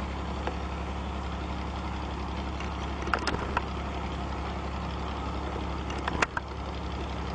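A steady low hum, with a few short sharp cracks about three seconds in and again around six seconds.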